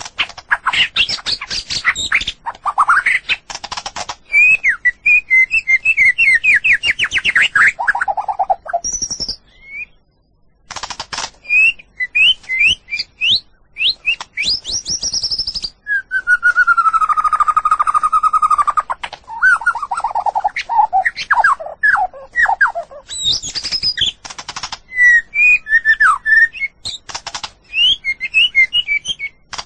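White-rumped shama singing a long, varied song of quick whistled notes, rapid trills and chattering runs, with a short pause about ten seconds in and one long held whistle about halfway through.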